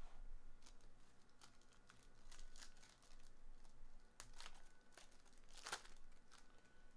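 Foil wrapper of a baseball card pack being torn open and crinkled by hand: a string of short, sharp crackles and rustles.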